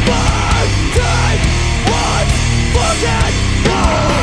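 Hardcore punk band playing loud and live: heavily distorted electric guitars, bass and drums, with regular cymbal and drum hits and bending guitar notes.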